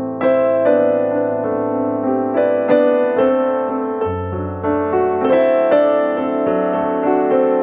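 Background piano music: a gentle melody with a steady run of notes over a bass line.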